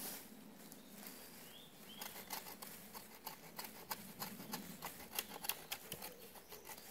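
Irregular crackling and snapping of dry twigs and leaf litter close by, as someone moves about in a pile of dead brush.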